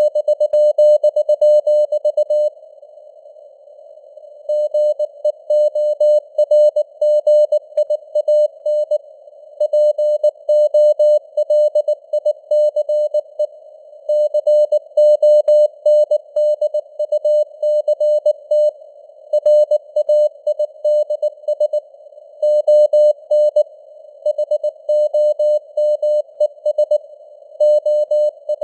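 Morse code (CW) sent at about 19 words per minute: a steady mid-pitched beep keyed on and off in quick dots and dashes, over a constant hiss of simulated radio noise, with the signal strength varying as if fading (QSB). One longer pause in the keying comes about two and a half seconds in.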